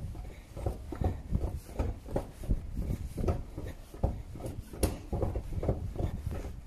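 Irregular soft knocks and rubbing, two or three a second: footsteps and handling noise picked up by the phone's microphone as the person filming goes down an escalator and walks on.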